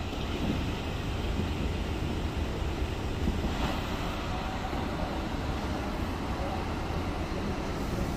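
Steady low rumble of bus-terminal background noise, with no distinct events standing out.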